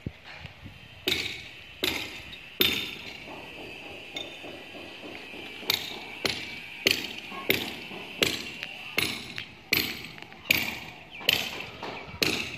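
Metal being struck again and again: about fourteen sharp clanks, each with a brief ring, a few spaced out at first and then a steady run of about one or two a second from halfway through.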